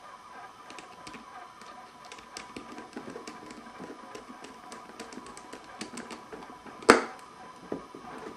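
Small scattered clicks and scrapes of a screwdriver turning the terminal screws on a plastic lamp holder while wires are fastened, with one louder knock about seven seconds in. A faint steady hum runs underneath.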